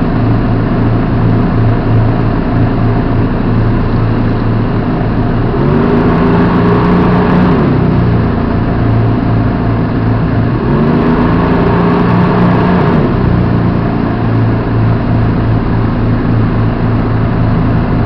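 Hägglunds Bv206 tracked all-terrain carrier's engine running steadily, heard from inside the cab, revving up twice for about two seconds each, about six and eleven seconds in, pitch rising then falling back.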